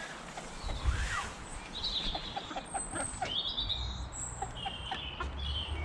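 Small birds chirping and singing in short, high whistles and downward glides, with a quick run of soft lower notes about two seconds in. A low rumble sits underneath in the second half.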